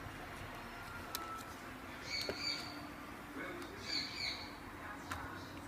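A bird calling twice in short squawks, with scattered small clicks.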